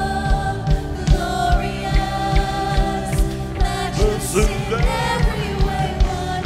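Live worship band playing and singing: several voices sing a held, wavering melody over sustained electric guitar and keyboard-like tones, with a steady beat of low thumps about two and a half times a second.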